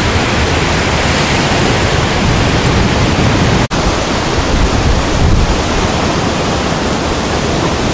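Ocean surf and wind at the beach, a steady loud rushing noise that cuts out for an instant a little under four seconds in.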